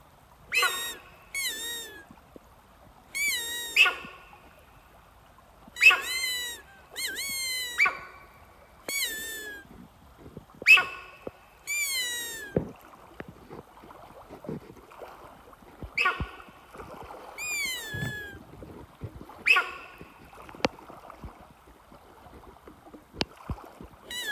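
Sambar deer call blown in short, high-pitched bleats, each falling then hooking in pitch, repeated about a dozen times at uneven gaps to draw in a protective hind. A few faint knocks in between.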